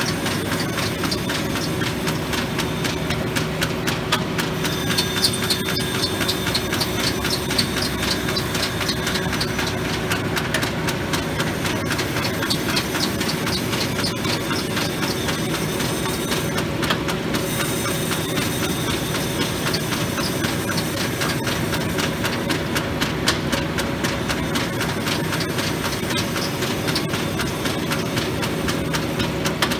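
1943 Arter A3-16 rotary surface grinder running and grinding parts: the 16-inch wheel works the parts on the rotating magnetic chuck under flood coolant, making a steady machine hum with a hiss and fine rapid ticking.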